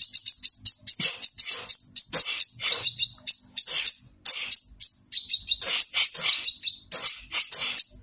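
Caged Van Hasselt's sunbird (kolibri ninja) singing: a fast, continuous run of high, thin chirps and trills over a steady high note, with a brief pause about four seconds in.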